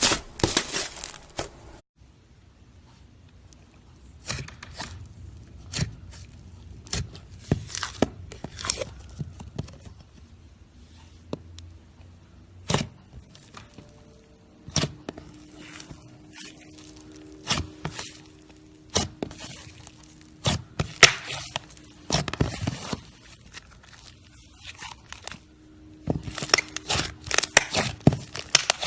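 Slime being squeezed and stretched by hand, giving irregular sticky clicks, pops and crackles. The clicking is dense at the start, thins out after about two seconds, and grows dense again near the end.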